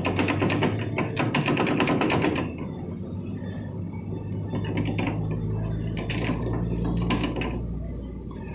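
Car rear differential running with a fast metallic clatter and grinding for about the first two and a half seconds, then a steadier low drone with occasional knocks. The noise comes from the ring gear hitting something inside the damaged rear end.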